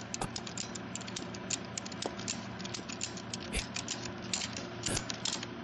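Ratchet strap being cranked tight: the pawl clicks in a quick, uneven run of several clicks a second, with a few louder knocks as the handle is worked.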